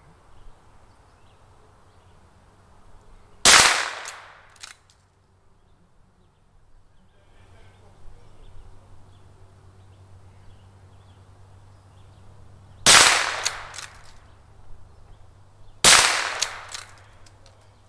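.22 caliber scoped rifle firing three shots: one about three seconds in and two more close together near the end, each sharp crack trailed by a brief echo.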